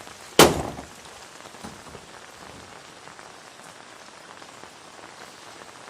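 Steady hiss of falling rain, with one loud sharp thump about half a second in that dies away quickly.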